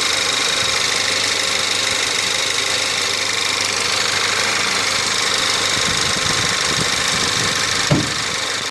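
1.8 TSI petrol engine idling while still cold, heard close up with the bonnet open: a steady mechanical running with a high steady tone through it. A single thump about eight seconds in, just before the sound drops away sharply.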